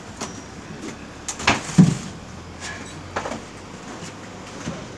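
Knocks and thumps of cargo being handled inside a steel shipping container: about half a dozen sharp knocks spread through, the loudest a dull thump a little under two seconds in.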